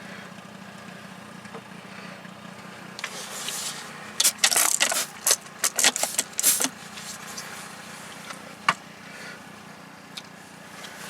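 Metal clinking and scraping in a quick series of sharp bursts lasting about three seconds, then a single click, over a steady low hum: hand tools and metal parts being handled during a tractor oil change.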